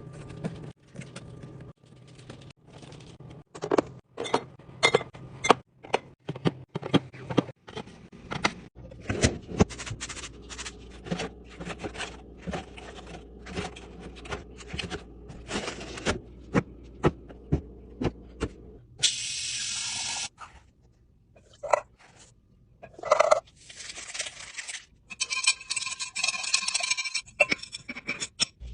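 Items being handled while a fridge is restocked: many sharp clicks, knocks and scrapes of containers and packages being set down, with a brief hiss about two-thirds through and rustling near the end.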